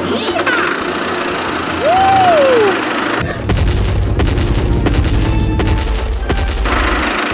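Loud booming and rumbling, with a whistling tone that rises and falls about two seconds in; the deep rumble sets in a little after three seconds and stops shortly before the end.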